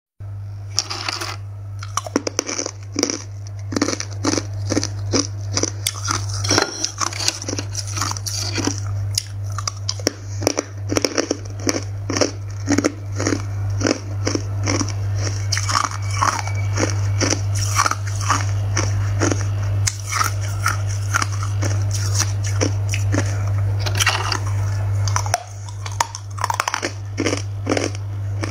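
Hard ice being bitten and chewed, a dense run of irregular crunches over a steady low hum.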